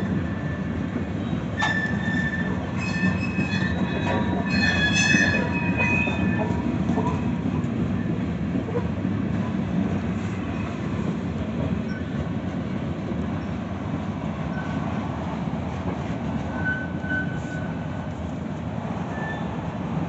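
CSX mixed freight train rolling past at trackside: tank cars, covered hoppers and autoracks, with a steady rumble of steel wheels on rail. High wheel squeals cut in from about two to seven seconds in, and a brief one comes near the end.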